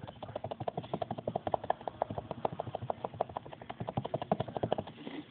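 Foam wedge sponge dabbing acrylic paint onto a small stretched canvas: fast, even tapping, about nine or ten taps a second, that stops shortly before the end.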